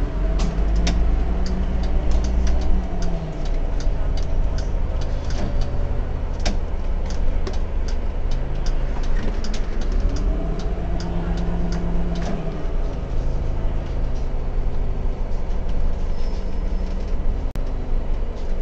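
Autosan M12LF CNG city bus driving, heard from the driver's cab: the gas engine's drone climbs in pitch and drops back twice as the bus accelerates and the gearbox shifts up. Frequent small rattles and clicks from the cab fittings run over it.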